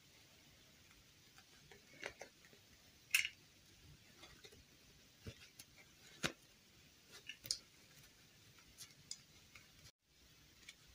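Hands handling a plastic fashion doll and its cloth clothing: faint scattered clicks, taps and rustles, with a few sharper clicks about 2, 3 and 6 seconds in.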